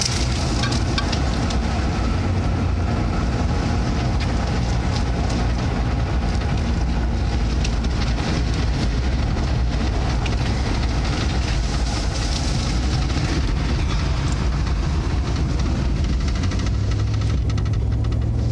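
Vehicle driving: a steady low engine and road rumble with scattered crackles and clicks over it.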